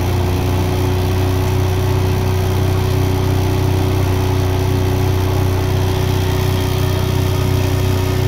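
Electric boat motor, fed by a FET controller and driving the outdrive, running steadily at low throttle: an even hum with a few held tones.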